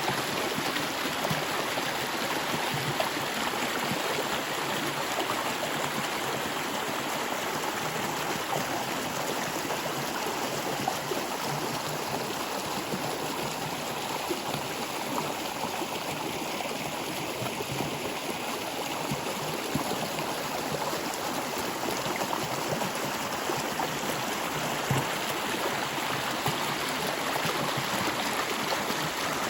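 Stream water flowing steadily over rocks, a constant rushing with fine gurgling.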